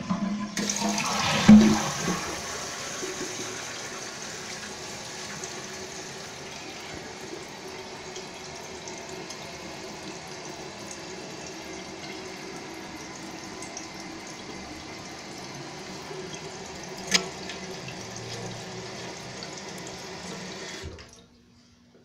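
1993 Kohler Wellworth Lite toilet flushing: a loud rush of water in the first two seconds, with a thump about a second and a half in, then a steady hiss as the fill valve refills the tank, cutting off about 21 seconds in. A single sharp click comes about 17 seconds in.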